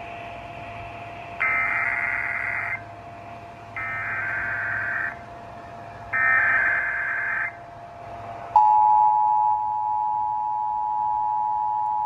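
Emergency Alert System test through an AM radio's speaker: three SAME header data bursts, each about a second and a half long, with short gaps between them. About eight and a half seconds in, the steady two-tone attention signal starts and holds. A faint steady whistle runs under the header bursts.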